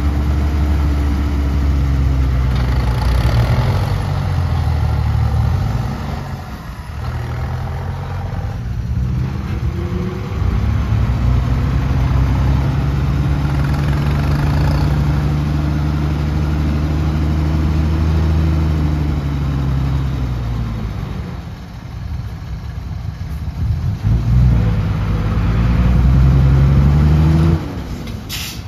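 Heavy diesel engine of a construction machine working, its revs rising and falling in several long swells. It holds high for several seconds at a time, then drops back suddenly near the end.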